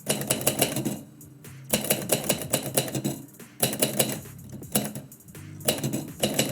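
Typewriter keys being struck in quick runs of clatter, with short pauses between the runs.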